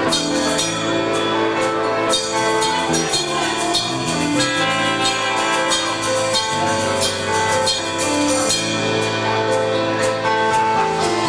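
Rock band playing live: a drum kit keeps a steady beat under sustained, pitched chords.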